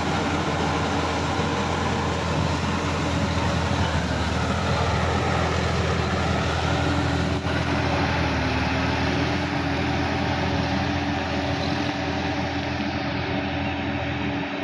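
Tractor diesel engine running steadily under load as the tractor, rotary tiller on the hitch, pulls through waterlogged mud. The sound grows more distant and duller in the second half as it moves away.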